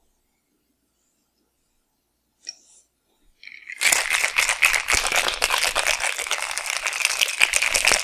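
Metal cocktail shaker shaken hard, ice rattling rapidly against its sides; the rattling starts about four seconds in, after a short click.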